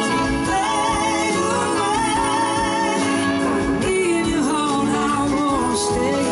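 Live blues-rock band playing a slow song: two electric guitars, keyboards and drums, with a wavering lead line and singing over them.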